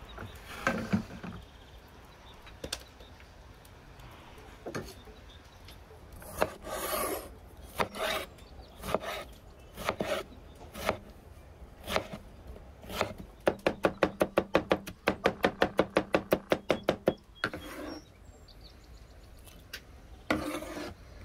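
Large chef's knife chopping tomatoes on a wooden cutting board: scattered single cuts at first, then a fast, even run of chops, about eight a second, lasting some four seconds past the middle.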